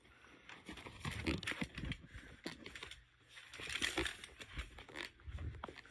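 Faint, irregular rustling and soft low bumps: handling and movement noise from a phone being carried around.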